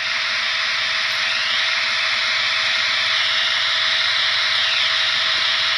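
Sound decoder of a Trix model Ce 6/8 II 'Crocodile' electric locomotive playing a steady hissing running sound through its small speaker as the model moves slowly. A fainter tone rises about a second and a half in, holds, and falls back near the end.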